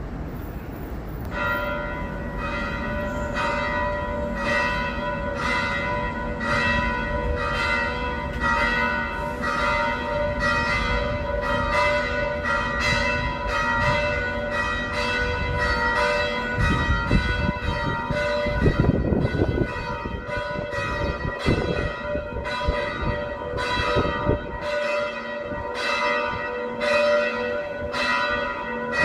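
Church bells of the Cathedral of the Good Shepherd ringing. Single bell strokes of several pitches follow one another in a steady succession, just under two a second, starting about a second in. A low rumble runs underneath and is heavier about two-thirds of the way through.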